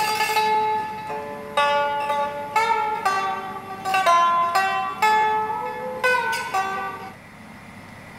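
A round-bodied Chinese lute plucked in a slow melody of single notes, a few of them bent in pitch, that stops about seven seconds in.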